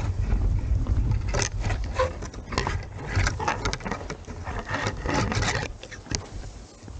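Low, gusty wind rumble on the microphone, with irregular scraping and rustling clicks over it.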